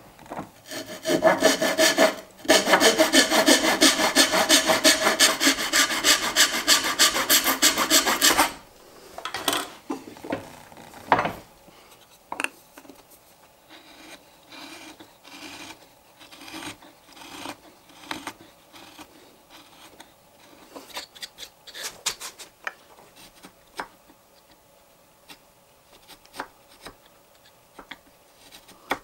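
Hand saw cutting through wood in rapid back-and-forth strokes for about seven seconds, the loudest part. It stops suddenly, followed by an angled skew chisel paring the corner of a sapele frame joint against a 45° guide block, with quiet scrapes and small clicks.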